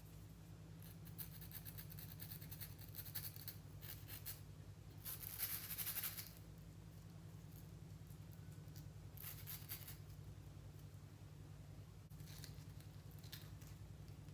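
Intermittent scratchy rustling of a lace wig being pulled and handled, loudest about five to six seconds in, over a steady low hum.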